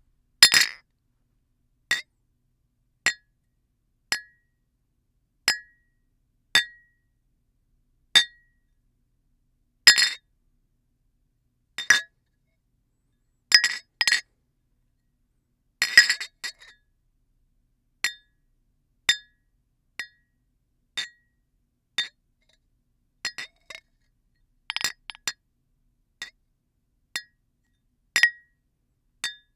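Drinking glasses knocked together in a long series of separate sharp clinks, each with a short high ring, about one every second or two. A few strikes come as quick double or triple hits with a little rattle.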